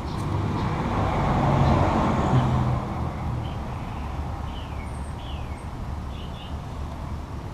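A road vehicle passing by, its noise swelling and then fading within the first three seconds, followed by a few short, falling bird chirps over steady background noise.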